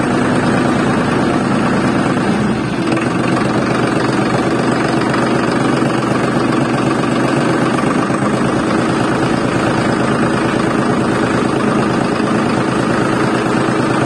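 DIY mini tractor running steadily, an even engine-like drone that holds the same pitch and loudness throughout.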